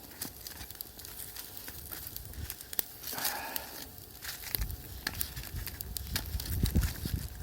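Wood campfire crackling with scattered sharp pops, with a low rumble growing through the second half.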